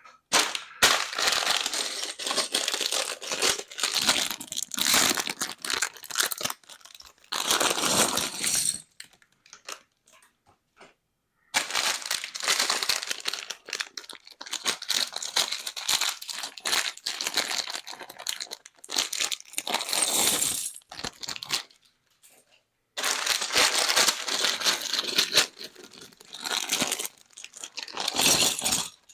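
Plastic bags of Lego pieces crinkling as they are handled and opened, in long spells broken by two short pauses.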